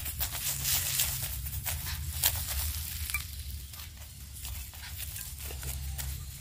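Desi ghee sizzling on a paratha on a hot tawa as it is spread over the flatbread with a spoon, a continuous hiss with scattered crackles over a low steady rumble.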